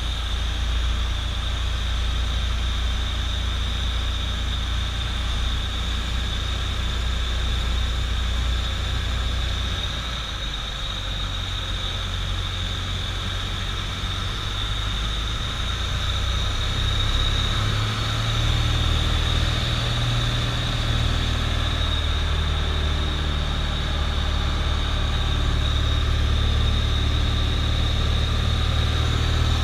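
Piston engine and propeller of a light single-engine airplane droning steadily in flight, heard from inside the cockpit. The engine note shifts partway through, a little quieter about ten seconds in and louder again from about sixteen seconds.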